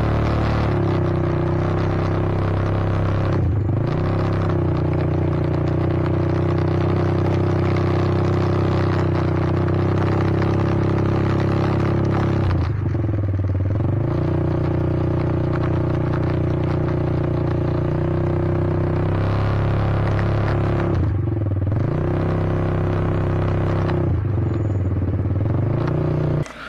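A vehicle engine running steadily at speed. Its pitch dips briefly and recovers three times.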